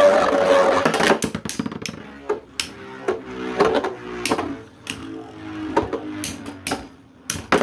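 Beyblade spinning tops battling in a stadium: a loud grinding whir as they clash, easing off about a second in, then repeated sharp clacks of hits and a wavering ringing hum as they spin.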